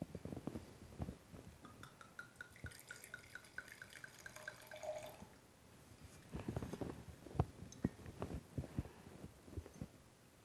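Wine poured from a bottle into a glass: a run of faint glugs that climb steadily in pitch for about three seconds. Soft knocks and clinks of glass being handled follow.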